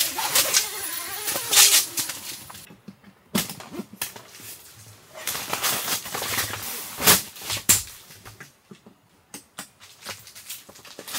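Tent fabric rustling as the door panel is handled, then a few scattered knocks and clicks as a portable power station is moved on the floor and its buttons are pressed.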